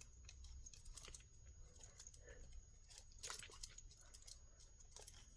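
Faint scattered clicks and rustles of a tangled metal jewelry chain being worked apart by hand, with one slightly louder click about three seconds in.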